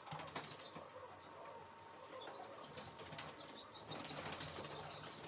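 Domestic pigeons flapping their wings as they are let out of their cages, with faint scattered rustling and clicking and a sharp knock about a second and a half in.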